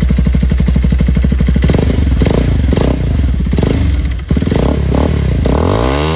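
Bajaj Pulsar 220F's single-cylinder engine through an Akrapovic aftermarket exhaust, idling and then blipped in a run of quick throttle revs, ending with one longer rev that rises and falls.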